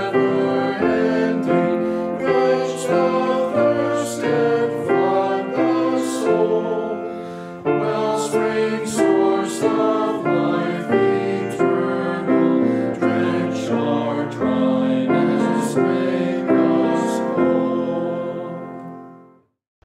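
Small choir singing a hymn with piano accompaniment, the notes moving in steps; the music dies away to silence near the end.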